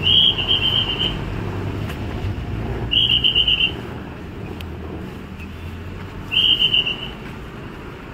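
A whistle blown in three high, trilling blasts, each about a second long and about three seconds apart, over a steady low rumble of road traffic.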